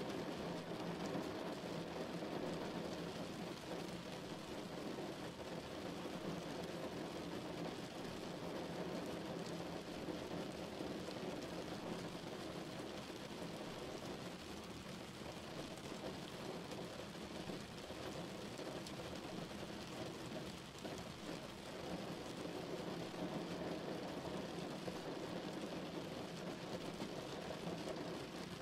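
Steady rain falling outside a window: an even, unbroken hiss with no pauses.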